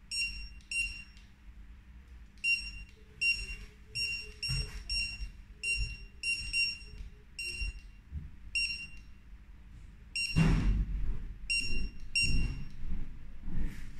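Handheld mini 1D barcode scanner giving about a dozen short, high-pitched beeps at uneven intervals, each beep confirming a successful read of the box's barcode. A loud burst of noise comes about ten seconds in, during a pause in the beeping.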